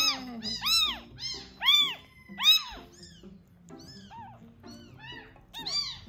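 A week-old rescued kitten of about 85 g crying over and over as it is fed milk from a syringe, each high cry rising and falling in pitch. It is too frantic for the milk to drink steadily. The cries are loudest in the first couple of seconds, then turn shorter and quieter at about two a second once the syringe is in its mouth.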